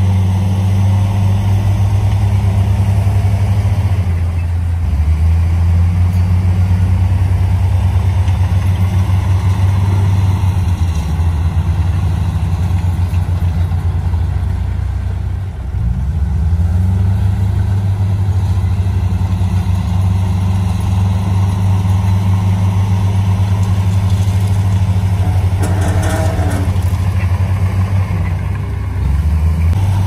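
Heavy dump truck's diesel engine running steadily while its hydraulic hoist tips the overloaded bed. The engine note dips briefly about halfway through and shifts again near the end.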